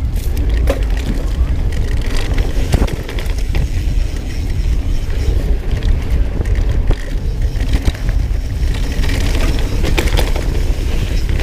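Mountain bike riding fast down dirt singletrack: heavy wind rumble on the action-camera microphone, with frequent clicks and knocks as the bike rattles over the rough trail.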